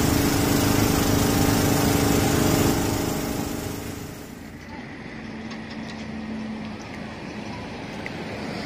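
Small engine-driven water pump running steadily, pumping floodwater out through its hose. About three seconds in the engine sound drops away, leaving quieter background noise.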